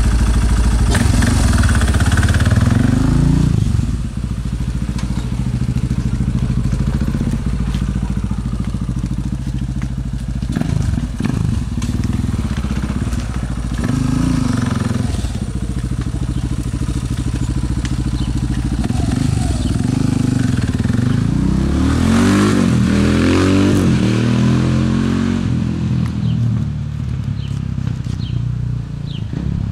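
2001 Yamaha Warrior ATV with a 446 cc stroker single-cylinder four-stroke engine, running and being ridden. It is loudest in the first four seconds, then drops a little as the quad moves away, with a run of rising and falling revs about three quarters of the way through.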